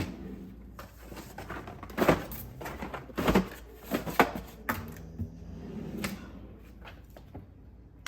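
Household objects being handled: a run of irregular knocks, clicks and rustles, the loudest about two, three and four seconds in.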